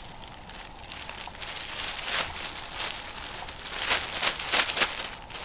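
Hoodie fabric rustling and swishing as it is handled and folded close to the microphone, in a run of short strokes that get louder toward the end.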